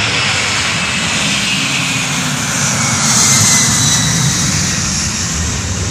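Boeing 767-300ER's twin turbofan engines running at takeoff power during the takeoff roll. The loud, steady jet noise swells to its loudest about three seconds in as the airliner passes, with a faint whine gliding down in pitch.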